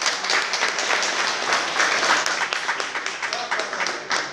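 A crowd applauding, with dense, irregular clapping and voices mixed in.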